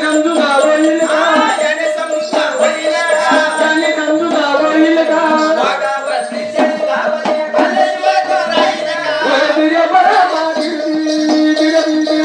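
Live Marathi jagran folk music: a steady held drone note under a wavering melody line, with jingling, rattling percussion keeping time.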